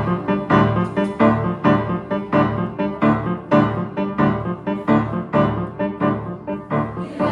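Piano playing a rhythmic introduction of repeated chords struck about two to three times a second, starting abruptly.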